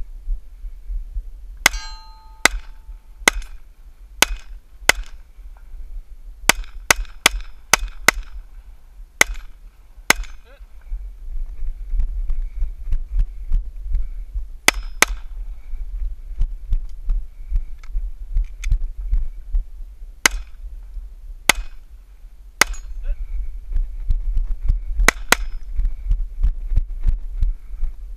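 A semi-automatic pistol firing about twenty shots: quick strings of rapid shots, then a pair and a few spaced single shots. A steady low thudding of movement and wind on the head-mounted camera microphone runs underneath.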